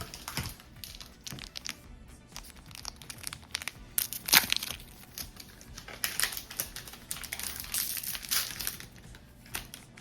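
Trading cards and a foil booster-pack wrapper being handled: irregular crinkling, rustling and sliding in bursts, loudest about four seconds in.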